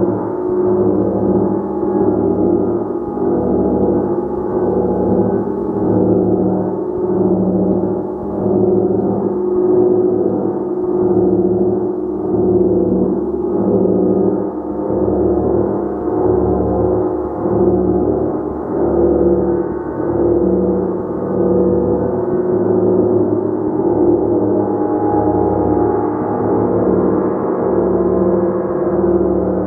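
A large gong played continuously: a dense wash of sustained overtones with the low tones pulsing, swelling and ebbing every second or two as it is kept struck softly.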